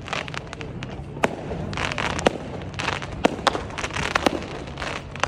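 Fireworks bursting overhead: an irregular run of sharp bangs and pops, several a second at times, with stretches of crackling from gold crackle stars.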